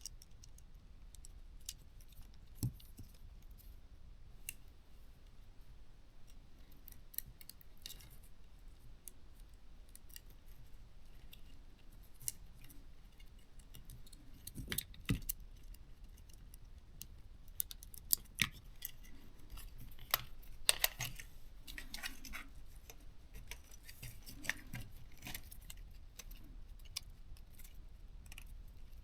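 Scattered light clicks and taps of small plastic parts and tools being handled. A replacement arm is being fitted into a small drone's plastic housing, and the clicks come more often about halfway through.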